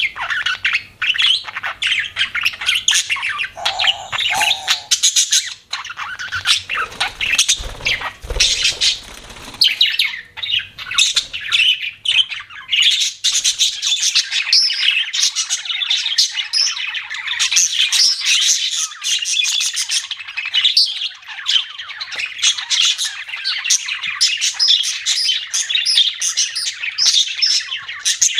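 A group of budgerigars chirping and chattering all at once: a dense, unbroken stream of quick, high calls.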